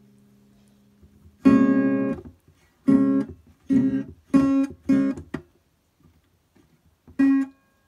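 Guitar strummed in separate chords, about seven strums with pauses between them, each ringing out briefly.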